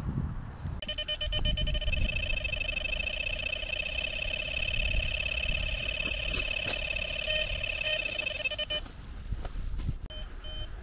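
Electronic carp bite alarm sounding a fast, continuous beeping tone from about a second in until just before the end, signalling a run: a carp taking line. Near the end separate short beeps start, the alarm of the second rod in a double run.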